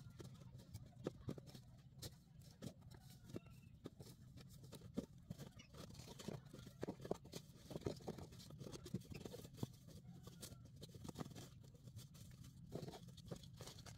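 Dry palm fronds and chunks of dead palm wood being lifted and shifted by hand: scattered faint crackles, rustles and knocks over a steady low hum.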